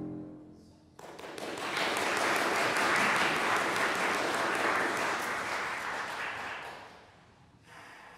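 The last chord of bassoon, contrabassoon and harpsichord dies away. About a second in, an audience starts clapping; the applause swells, then fades out near the end.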